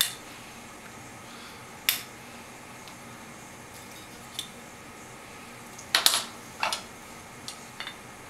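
Metal file prying and scraping at the cap of a new disposable oxygen canister: scattered sharp clicks and scrapes, the loudest cluster about six seconds in, as the stubborn cap resists.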